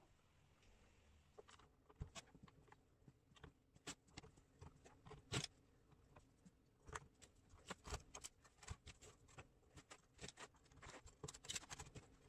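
Small wooden offcut blocks clacking against each other and the sides of a wooden box as they are placed and packed in by hand. It is a run of irregular light knocks, the loudest about five seconds in.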